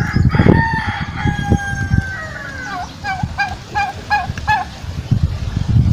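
A rooster crows: one long drawn-out call that falls off, then a run of about five short notes. Underneath, low wet thumps and squelches of a hand groping in a muddy hole.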